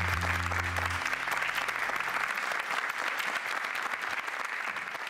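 Audience applauding as the song ends, slowly fading. The last held low notes of the accompaniment die away in the first second or two.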